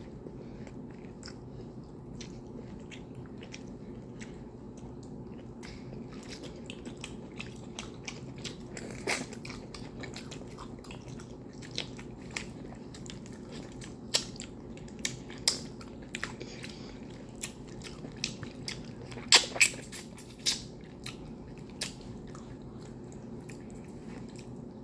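Close-miked eating of chicken stew and fufu by hand: chewing with many wet mouth clicks and smacks, loudest about 19 to 20 seconds in, over a steady low hum.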